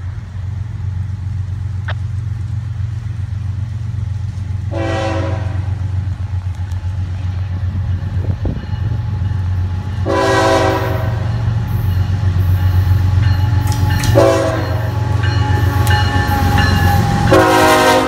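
Florida East Coast GE ES44C4 diesel locomotive approaching, its engine rumble growing steadily louder, while its air horn sounds the grade-crossing signal: long, long, short, long, the last blast starting near the end.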